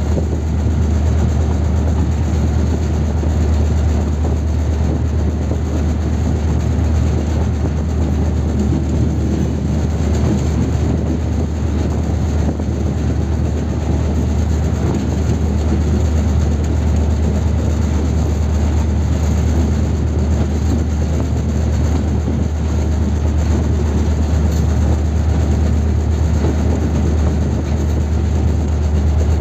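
Diesel locomotive under way, heard from its cab: a steady, heavy engine drone mixed with the rumble of wheels rolling on the rails.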